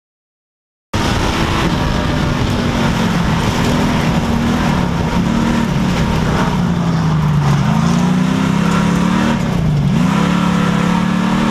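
Dirt-track street stock race car's V8 engine at racing speed, heard loud from inside the cockpit, with road and wind noise. It starts abruptly about a second in; its pitch sinks and climbs again two-thirds of the way through, then dips sharply near the end and picks back up.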